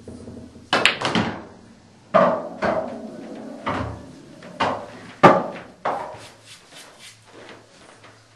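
Pool balls knocking as a shot is played: a cue strike and balls clacking together, then a string of sharp knocks of balls hitting the cushions and a potted ball dropping into the pocket, the loudest a little past halfway, smaller knocks tailing off near the end.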